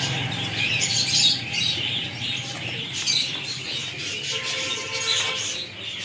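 A flock of small caged birds chirping and chattering continuously, many calls overlapping.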